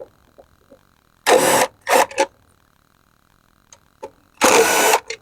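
Power drill spinning out screws in three short bursts, the last about half a second long near the end, with faint clicks of the bit and screws between.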